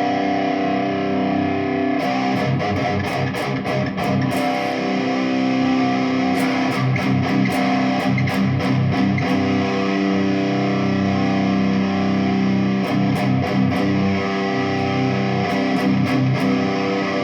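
Jackson Dinky electric guitar played through an amplifier: held chords, then repeated picked strokes from about two seconds in. The tone knob is rolled all the way down on a test tone capacitor marked 22.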